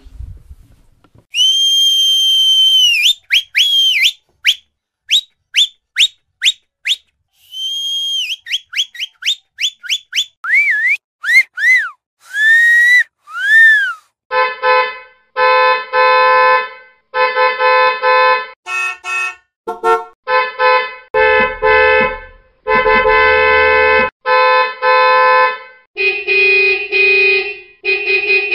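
Whistling: one long steady whistle, a run of quick short whistles, then whistles that rise and fall. About halfway in, a car horn starts honking in repeated short and long blasts.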